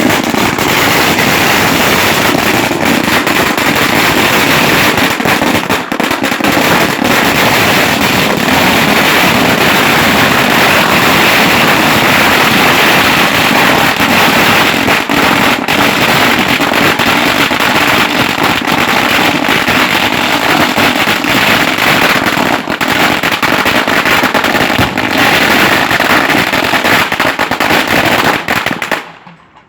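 Firecrackers going off in a dense, continuous crackle of rapid bangs for nearly half a minute. The bangs stop abruptly just before the end.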